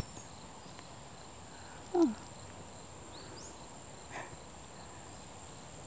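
Quiet outdoor ambience with a steady high-pitched insect drone. About two seconds in, a person's voice makes one short falling sound.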